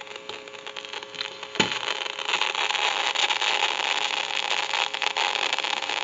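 Staticky hissing, crackling and popping from a Northern Electric telephone's F1 carbon-granule transmitter, heard through an amplifier pickup. It starts faint over a light hum, swells about two seconds in and stays loud. The transmitter is too noisy and needs replacing.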